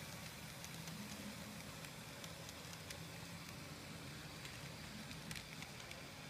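N scale model freight train running past: a faint, steady whirr of the locomotive motors and wheels rolling on the track, with scattered light clicks.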